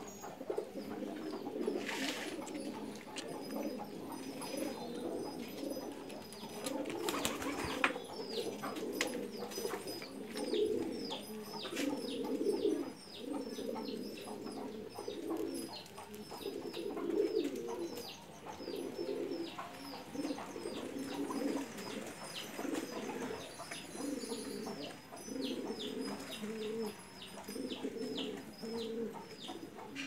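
Domestic pigeons cooing continuously in a pulsing chorus, with many short, high chirps from small birds repeating over it.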